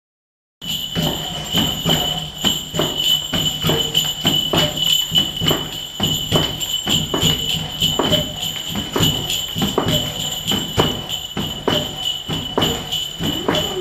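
Bells jingling in a steady shaken rhythm, about two or three strokes a second, with a constant high ringing underneath.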